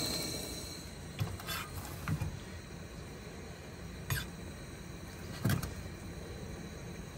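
A propane camp stove burner hissing under a pot of noodles, fading out about a second in. Then a tea bag stirred with a plastic spoon in a stainless steel mug: five light taps and knocks, the loudest about five and a half seconds in.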